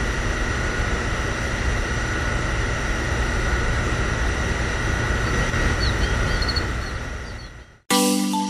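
A steady mechanical hum with a strong low rumble and a thin high whine, fading out near the end. A chiming mallet-percussion tune starts just before the end.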